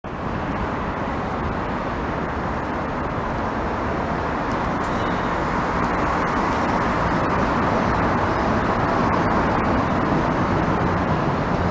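Steady road traffic noise from cars passing on the road below, slowly growing louder.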